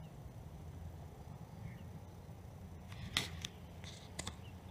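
Steady low outdoor rumble, then a short cluster of sharp clicks and taps about three seconds in, with two more just after four seconds.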